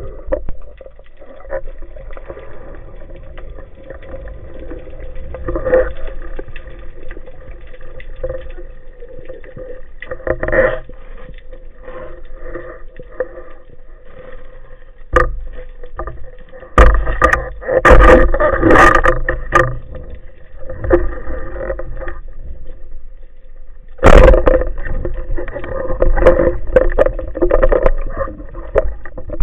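Muffled water noise picked up by a camera in a waterproof housing, with a faint steady hum underneath and several louder surges of water noise.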